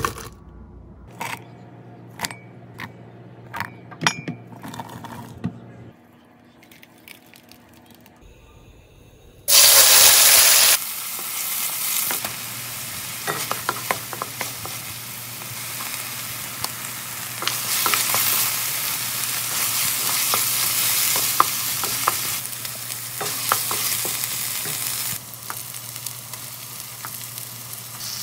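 Chopped onions dropping into a glass blender jar with light clicks and taps, then a very loud burst from the blender running for about a second. After that, red chili spice paste sizzles steadily in a frying pan while a wooden spatula stirs and scrapes through it, with small taps against the pan.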